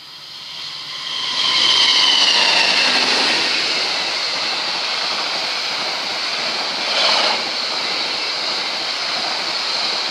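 Express passenger train passing close at speed behind a KAI GE CC206 diesel-electric locomotive, with a long, even rush of wheels on rail as the coaches go by. About a second or two in, high tones drop in pitch as the locomotive passes, and there is a brief swell about seven seconds in.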